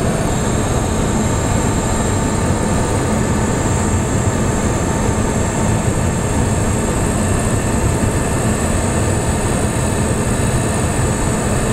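Motorhome driving on the highway, heard from inside the cab: a steady mix of engine, tyre and wind noise.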